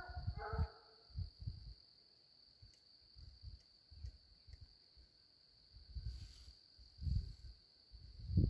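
Crickets trilling steadily on one high pitch, with a hunting hound's long bawl on a track at the very start, heard from a distance. Scattered low thumps rumble on the microphone.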